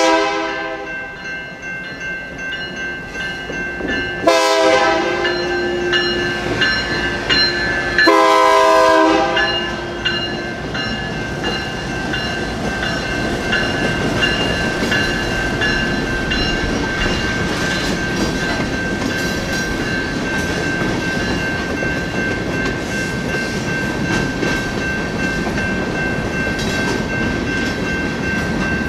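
Union Pacific diesel locomotive's air horn blowing for a grade crossing: the end of one blast, then two more about four seconds apart, the last held nearly two seconds. Crossing bells ring steadily underneath. From about ten seconds in, the locomotive and freight cars roll past with a steady rumble and clacking of wheels on the rails.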